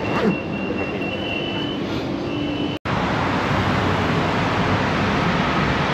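Steady running rumble inside a moving metro train carriage, with a high whine held throughout. It cuts off abruptly about three seconds in, and steady city street traffic noise follows.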